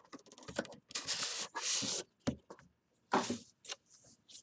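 Rustling and crinkling as a sealed trading-card box is worked open by hand, with small clicks and taps between. There is one longer stretch of rustling about a second in and a shorter one past the middle.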